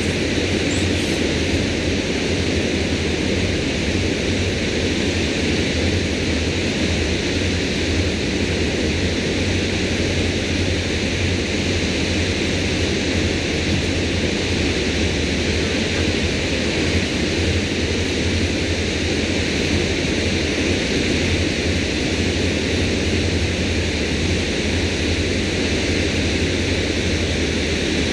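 Steady rushing of water pouring over a dam spillway, with a low hum underneath.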